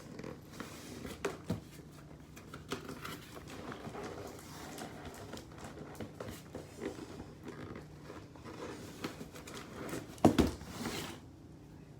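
A shipping parcel being worked open by hand: rustling, crinkling and scraping with scattered small clicks, and a sharp knock about ten seconds in.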